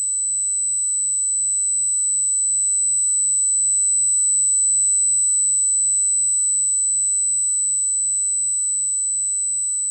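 Synthesized space sound effect: a steady, high-pitched electronic tone with a fainter low hum beneath it, slowly swelling in loudness to about halfway through and then easing off.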